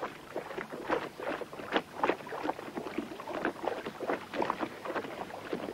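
Lake water lapping and slapping against the hull of a small boat, an irregular run of short splashes over a soft wash of water.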